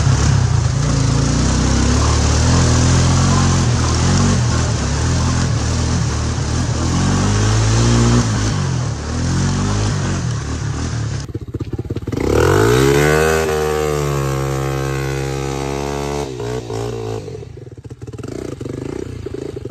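ATV engine running and revving up and down under load as the quad drives through a muddy trail. About eleven seconds in the sound changes abruptly to an engine revving up, holding a steady high pitch for a few seconds, then dropping away.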